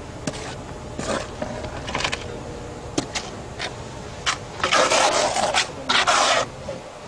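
Trowel scraping cement adhesive onto the edge of a precast lightweight concrete wall panel in several short strokes, the longest and loudest about five and six seconds in, with a few sharp clicks between them.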